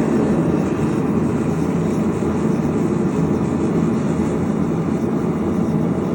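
A shop power tool running steadily, an even, loud mechanical noise with no change in pitch.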